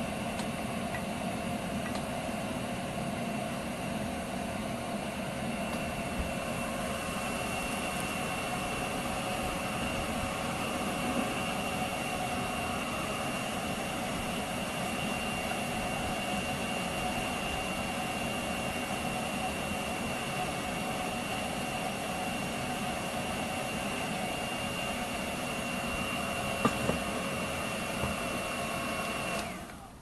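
Small electric blower whirring steadily, forcing air through a steel pipe into a backyard aluminium-melting furnace. A couple of light clinks come near the end, and the whir cuts off just before the end.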